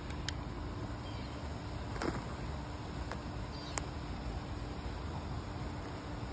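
Charcoal briquettes burning in high flames just after being lit with lighter fluid: a steady rushing noise with a few sharp crackles.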